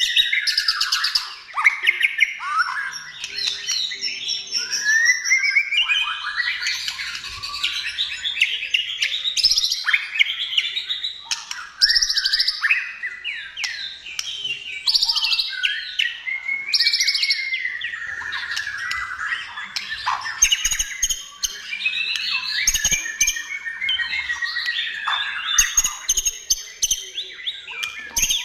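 White-rumped shama singing without pause: a long, varied song of whistled phrases, rising and falling glides and fast trills.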